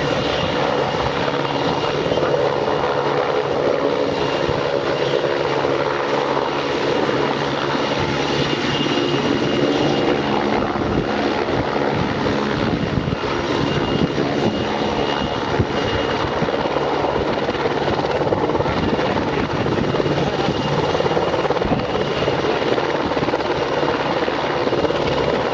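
A PZL W-3A Sokol helicopter in flight: its twin turboshaft engines and four-blade main rotor run steadily and loudly, with a thin, high turbine whine held throughout.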